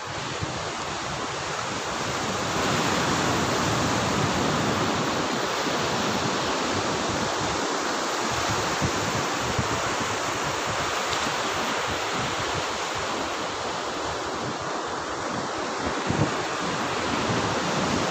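Sea surf breaking and washing up a sandy beach: a steady, loud rush of waves that swells over the first few seconds and then holds.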